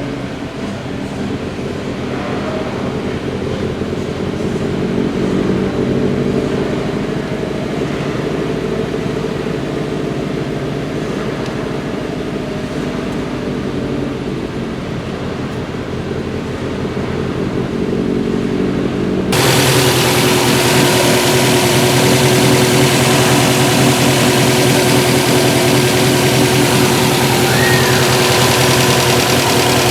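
2014 Subaru WRX's turbocharged EJ255 flat-four running at a rough idle, the fault being diagnosed. Its loudness swells and eases in the first part, and about two-thirds of the way through it changes abruptly to a brighter, hissier, steadier engine sound.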